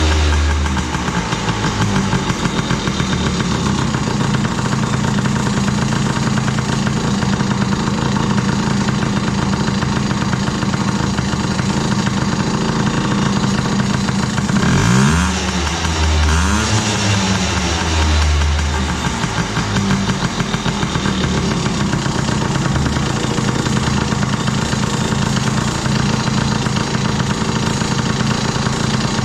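2000 Yamaha PW50's 50cc two-stroke single-cylinder engine running at idle, blipped twice about halfway through with quick rises and falls in pitch. It is running with its oil injection pump blocked off.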